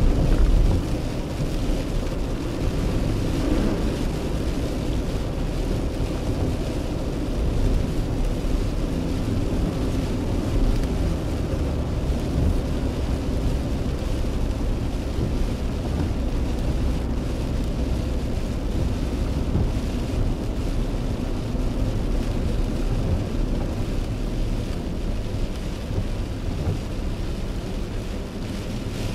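Car driving on a wet road in heavy rain, heard from inside the cabin: a steady, mostly low noise of tyres on the wet road and rain on the car, briefly louder about half a second in.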